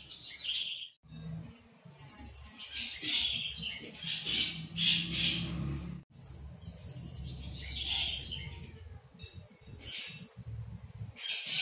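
Birds chirping in short bursts every second or two, over a low background rumble.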